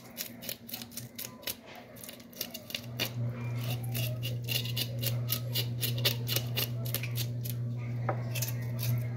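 Knife blade scraping scales off a whole mojarra on a plastic cutting board, in quick repeated strokes, several a second. A steady low hum comes in about three seconds in and continues under the scraping.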